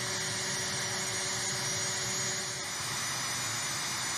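Steady running noise of jet aircraft on a flightline, a constant rush with a thin high whine over it. About two and a half seconds in, the low hum under it drops out.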